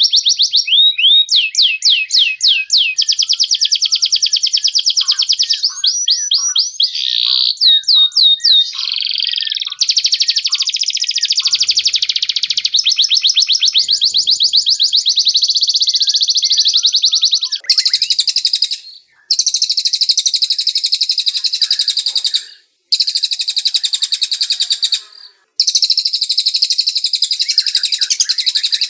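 Songbird song from a masteran training recording for white-rumped shamas, in canary style: long runs of fast, high repeated trills that change pattern every second or two. About two-thirds of the way in it turns into dense phrases of several seconds broken by short pauses.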